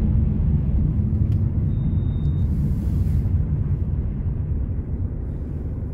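Low, steady rumble of a car's engine and tyres on a wet road, heard inside the moving car, easing slightly toward the end. A short, thin high tone sounds about two seconds in.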